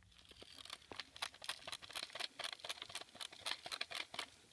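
Small, quiet, irregular clicks, several a second, of an airsoft gun being reloaded, BBs clicking into its magazine.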